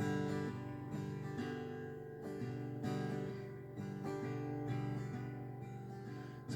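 Acoustic guitar playing a slow, quiet instrumental passage between sung lines of a ballad, with a new chord or note about every second that rings and fades.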